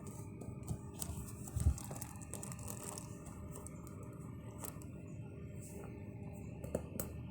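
Light handling noises: a run of rustling and soft clicks for a couple of seconds, one low thump about a second and a half in, and a few more light clicks near the end, over a faint steady background.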